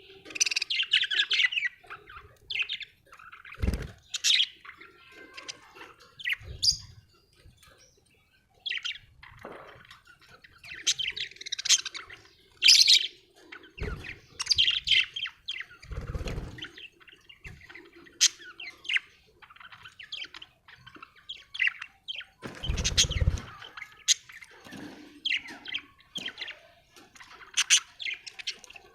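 Budgerigars chirping and chattering in quick, irregular bursts of short high chirps, with several brief low thumps now and then.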